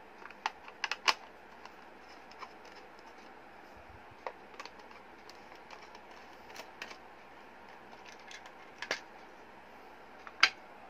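Small clicks, taps and scrapes of a screwdriver on the back-cover screw of a hard-plastic analog clamp meter, then its back cover being lifted off. A cluster of sharp clicks comes in the first second, and a single louder click comes near the end.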